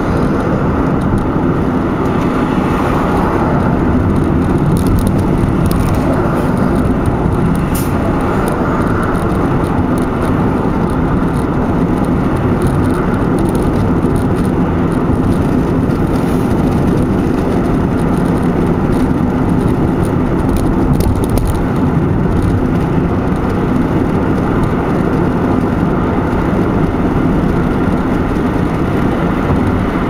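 Steady road noise inside a car driving at highway speed: tyres on pavement and the engine running, with a low steady hum.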